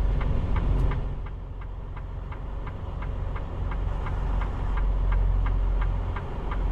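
Diesel engine of a semi truck running low and steady, heard from inside the cab, with a light regular ticking about four times a second.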